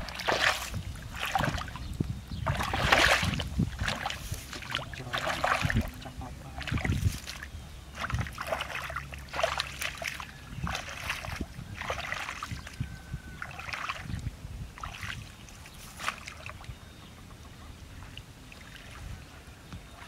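Repeated splashing and sloshing of shallow water as hands scoop and grope through a drying rice-field pool for fish, in short irregular bursts about one a second, growing fainter in the last few seconds.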